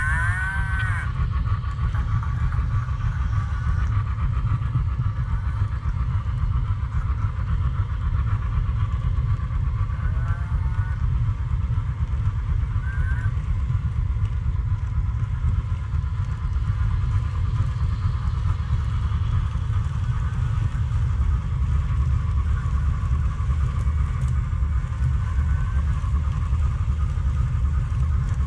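Freight cars of a long HO-scale model train rolling past close by: a steady rumble of wheels on track, with a few brief squeals.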